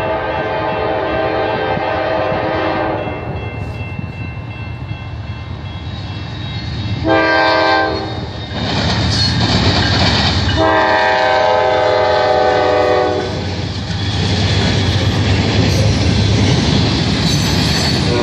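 Norfolk Southern freight train's diesel locomotive air horn, a multi-note chord: a long blast at the start, a short loud blast about seven seconds in, and another long blast about ten seconds in, over the rumble of the passing locomotives. The freight cars then roll by with a steady clatter of wheels on the rails, and another horn blast begins near the end.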